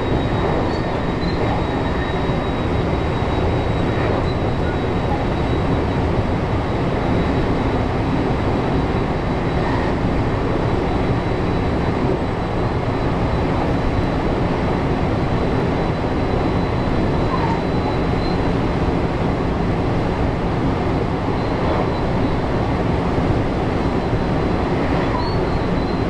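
Steady running noise of a JR 223-series electric train as heard inside the driver's cab: wheels on rail and drive noise, even in level, with a faint steady high-pitched tone over it.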